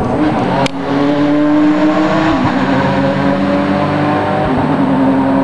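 Race car engine running hard at high revs, holding a steady pitch that steps down about two and a half seconds in and back up a couple of seconds later.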